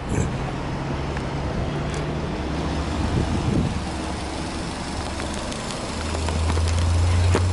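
Subaru Impreza S-GT's 2.0-litre turbocharged flat-four boxer engine idling steadily, somewhat louder near the end.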